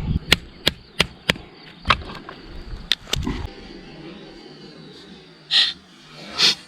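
A run of sharp knocks of hard objects striking, about three a second at first and then a few more spaced out, followed near the end by two short scraping hisses.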